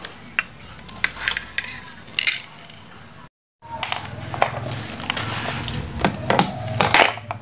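Scattered light knocks and clicks of a circuit board and test gear being handled and set down on a tabletop. The sound drops out completely for a moment about three seconds in.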